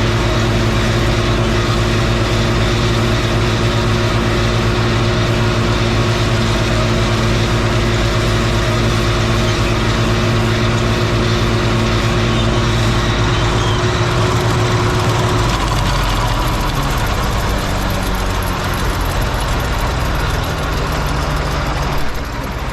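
Farm tractor engine running steadily; about two-thirds of the way through, its note drops to a lower pitch.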